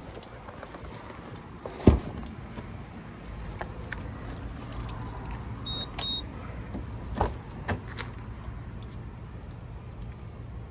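Sounds at a parked car: a single heavy thud about two seconds in, two quick high beeps just past the middle, and a few light clicks later on, over a low steady vehicle rumble.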